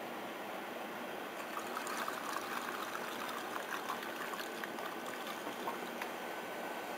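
Gasoline being poured through a funnel into an exhaust header pipe, trickling and splashing steadily. It fills the pipe to show where it seeps out through cracks and pinholes along a weld.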